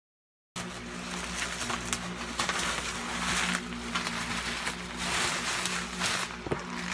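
Plastic bubble-wrap packaging rustling and crinkling in repeated bursts as a boxed speaker is handled and pulled out of it, starting abruptly about half a second in, over a steady low hum.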